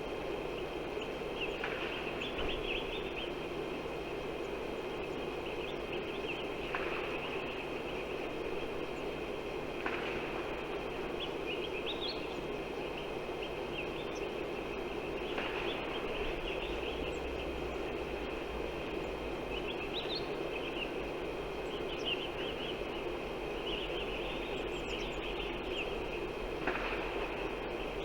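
Steady outdoor background noise with small birds chirping in short bursts every few seconds.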